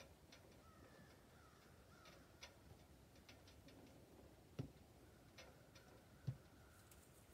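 Near silence with faint bird calls, a few light ticks, and two soft thumps, about four and a half and six seconds in.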